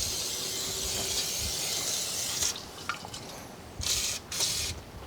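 Aerosol brake and parts cleaner sprayed onto the brake rotor: one long hiss of about two and a half seconds, then two short bursts near the end.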